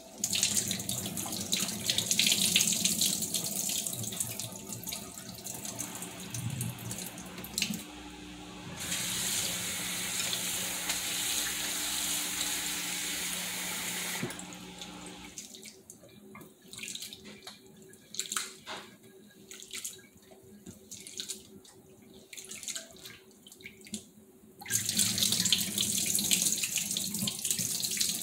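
Kitchen faucet running into a bowl of small dried fish being rinsed by hand, with water splashing. About halfway through the flow stops, leaving short splashes from the bowl, and the tap runs again near the end.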